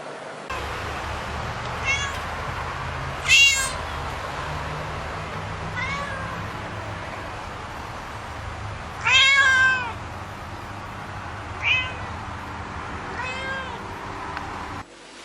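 A cat meowing repeatedly: about six meows a second or two apart, the loudest and longest about nine seconds in, over a steady low hum.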